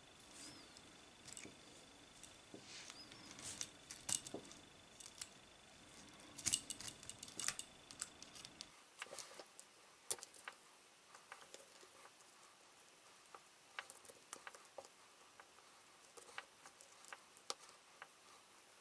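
Small metal chainmail rings clinking and jingling as loose rings and mail sections are handled and woven together, in irregular light clicks.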